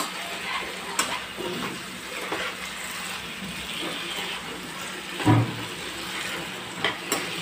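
Potatoes in thick tomato-onion gravy sizzling gently in a nonstick pan while a steel spoon stirs them, with a few sharp clicks of the spoon against the pan and one louder thump a little past the middle.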